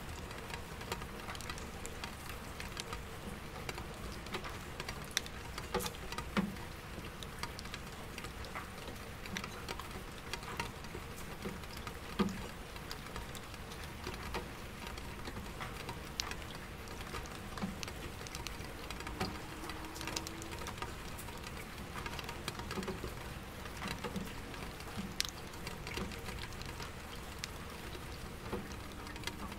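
Soft rain pattering steadily on window glass and an empty bucket, with many separate drops ticking through it, over a low city hum of distant traffic.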